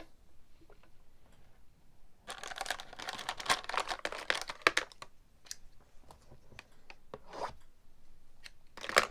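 Packaging of a baseball-card blaster box being torn open: a dense run of tearing and crinkling starting about two seconds in, then scattered rustles and clicks, with a sharper rip near the end.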